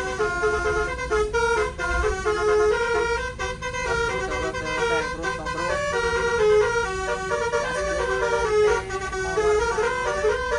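A bus's 12-trumpet roof 'telolet' air horn, driven by a Basuri module, plays a quick melody. Several horn notes sound at once and shift in steps every fraction of a second, over a low rumble.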